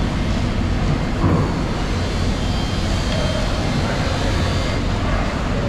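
Steady low rumble of background noise in a busy fish market, with faint distant voices.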